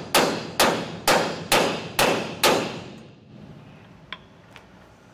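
Hammer blows on a trailer spring eye bolt, driving it through the leaf spring eye and the equalizer until the bolt's collar seats against the hanger. There are six metal-on-metal strikes about two a second, each ringing briefly, and they stop about two and a half seconds in.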